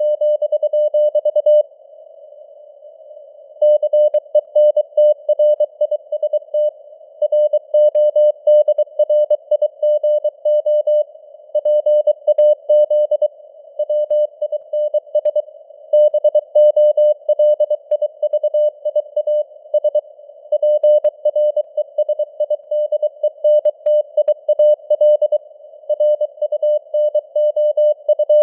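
Morse code at 23 words per minute, sent as a keyed tone of about 600 Hz in quick dots and dashes, over faint simulated radio noise. The signal strength rises and falls (simulated QSB fading), and a pause of about two seconds comes near the start.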